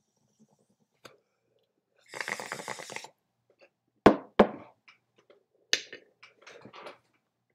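A bong hit: a one-second rush of air through the bong about two seconds in, then two hard coughs about four seconds in and further shorter coughs and breaths near the end.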